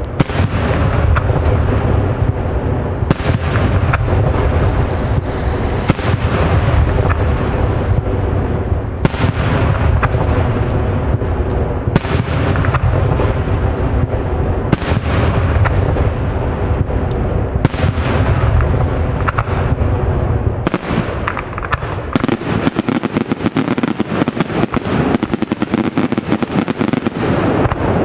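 Daytime aerial fireworks shells bursting in a continuous barrage of bangs and crackling, with heavier booms about every three seconds. About three-quarters of the way through the low booming drops away and it turns into rapid, dense crackling.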